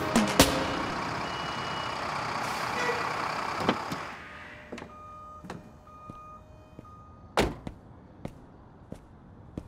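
Music ends on a last beat just after the start, and a rush of noise fades out. Then come a few faint short beeps, small clicks and one loud thunk of a truck cab door being shut, about seven seconds in.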